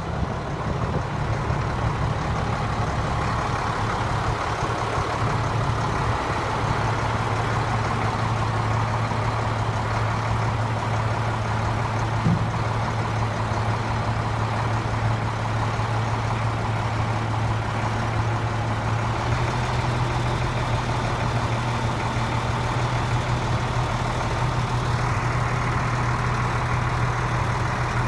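1997 International 4900's DT diesel engine idling steadily, a low even drone.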